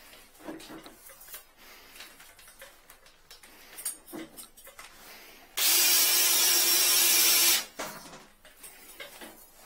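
Drill spinning a drain-snake drum loaded with an 8 mm spring cable, which works the cable through a blocked drain line. Light clicks and rattles of the cable being handled lead into a steady run of the drill motor for about two seconds, starting a little past halfway and stopping suddenly.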